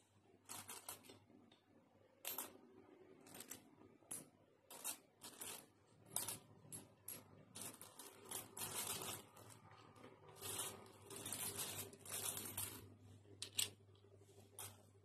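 A large heap of metal coins clinking and sliding as hands rake and sort through it, in irregular bursts of jingling with short pauses between.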